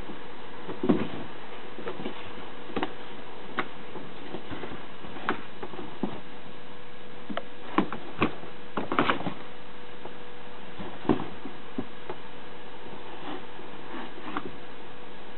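A cat moving about inside a cardboard cat house: scattered soft knocks, taps and rustles of cardboard, with a cluster of louder knocks around the middle, over a faint steady hum.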